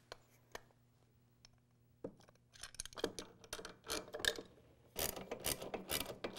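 A wrench ratcheting in quick runs of metallic clicks while tightening the bolts that hold a jack to a trailer tongue, starting about two seconds in and growing busier near the end, over a faint steady hum.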